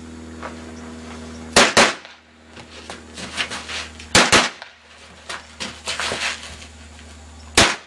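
Pistol gunshots from a Walther P38-based U.N.C.L.E. carbine firing live ammunition: a quick pair of loud shots about a second and a half in, another about four seconds in and one near the end, with fainter sharp cracks in between.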